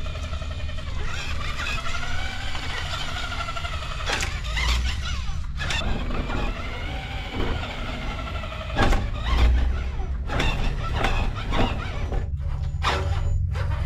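Electric motors and gearing of RC monster trucks (Grave Digger and Max-D) whining, rising and falling with the throttle, as they drive through shallow water. Several sharp knocks and bumps come in the middle and toward the end.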